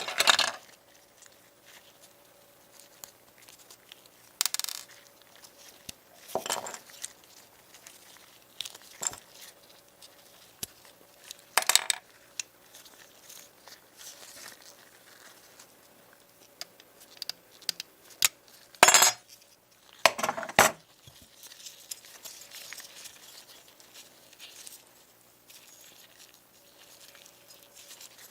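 Small metal parts of a toy model car being handled on a hard work surface: scattered clinks, taps and short scraping rattles, several louder clatters spread apart with quiet stretches between.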